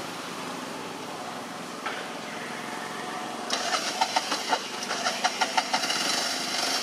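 A motor engine running, joined about halfway through by a louder, rapid, irregular rattling.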